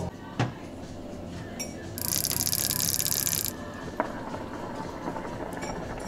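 A hookah being drawn on: a hiss of air with rapid fine bubbling for about a second and a half, starting about two seconds in, over low room noise.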